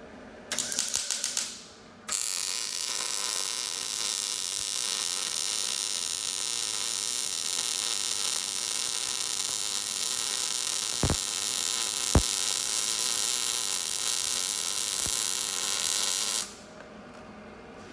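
Electric arc welding on steel. A short spurt starts about half a second in, then a steady crackling weld bead runs for about fourteen seconds and stops suddenly. Two sharp clicks come in the middle of it.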